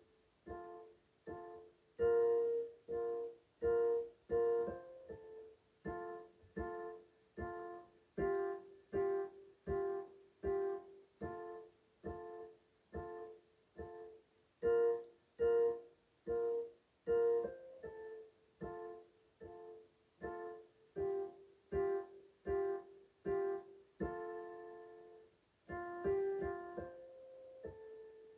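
Portable electronic keyboard played in a piano voice: a steady run of short, detached chords, about one and a half a second, with a longer held chord about three quarters of the way in.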